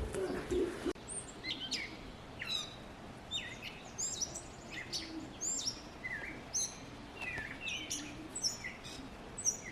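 Small birds chirping: quick, high, falling chirps, several a second, starting about a second in.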